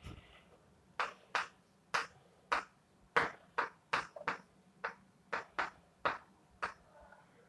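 A series of short, sharp clicks or taps at an uneven pace, about two a second.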